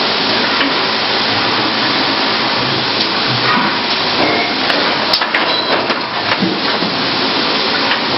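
Thermoforming machine running: a steady loud rush of machine and air noise, with a few short knocks partway through.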